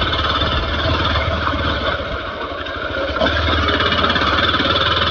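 Hero Xpulse 200 4V motorcycle's single-cylinder engine running as the bike rides over a rough dirt track: a steady low engine hum under a haze of wind and road noise. The engine note eases a little about two seconds in and picks up again after three.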